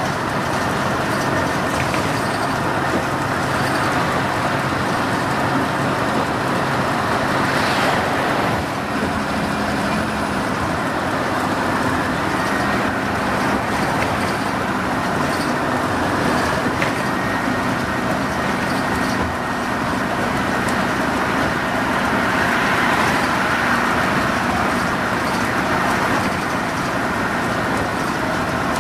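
Orion V CNG transit bus under way at a steady speed: its natural-gas engine running steadily under load, mixed with continuous road and tyre noise.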